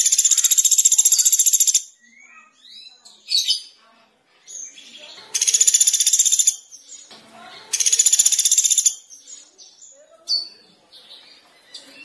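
Small songbirds in a mixed training-song recording: three loud, high-pitched, very fast buzzing trills (the first about two seconds long, the other two about a second each, in the second half), with scattered short chirps and whistles between them.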